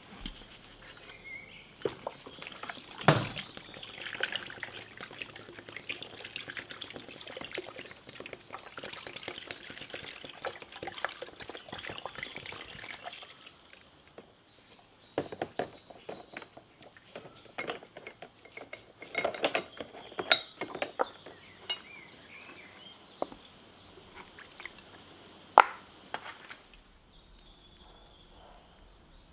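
Cold chemical blacking solution poured from a bottle into a plastic tub over small steel parts, splashing and bubbling for about twelve seconds. This is followed by scattered clinks and knocks, with one sharp knock a few seconds before the end.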